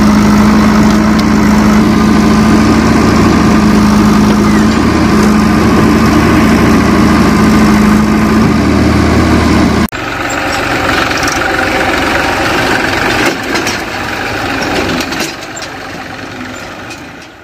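JCB 3DX backhoe loader's diesel engine running steadily and loud while it digs and loads soil. About ten seconds in it cuts off abruptly, and a quieter engine sound with a haze of noise takes over and fades out near the end.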